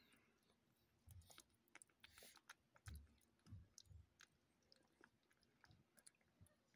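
Faint, irregular wet smacking and small clicks of a kitten chewing wet cat food from a bowl, with a few soft low thumps.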